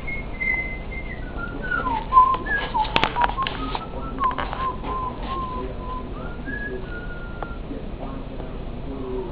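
A puppy whining: a thin, high, wavering whine that slides down in pitch, holds, then rises and falls again. A few sharp clicks come about two to three seconds in.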